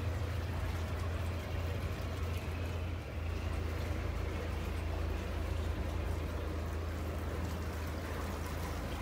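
A boat's engine running with a steady low hum, over a wash of running water.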